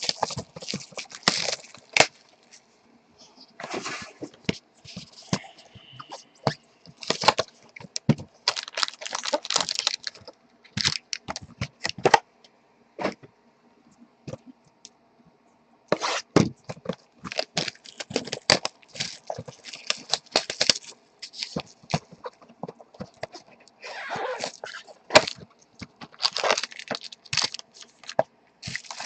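Trading card boxes being unwrapped and opened by hand: irregular crackling and crinkling of plastic wrap and cardboard, with sharp clicks in between.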